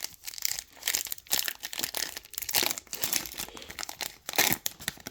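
Basketball trading cards and their plastic pack wrapper being handled: dense, irregular crinkling and rustling as the cards are flipped through.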